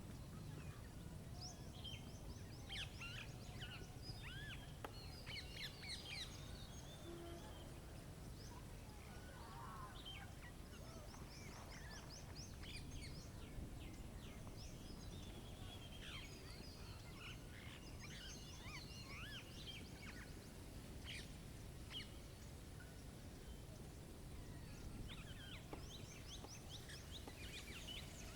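Small songbirds chirping and calling at a feeder, with many short chirps and a few quick trilled runs scattered throughout. A steady low rush of wind noise lies underneath.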